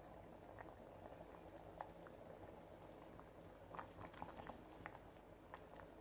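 Faint bubbling of biryani liquid boiling hard in an open aluminium pressure cooker, with scattered small pops, busiest a little past the middle.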